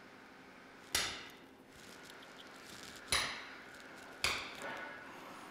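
Ball peen hammer striking an awl set against a crimped CV boot clamp on an ATV drive axle: three sharp metallic taps, each ringing briefly, the last two closer together, as the clamp is worked open to remove it.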